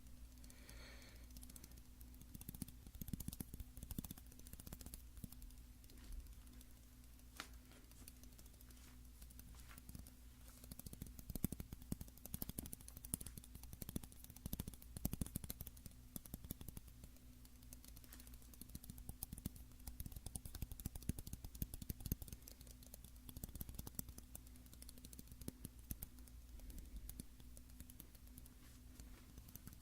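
Light, rapid tapping on a shoehorn, in quick flurries of small clicks that grow louder about a third of the way in and again a little after the middle.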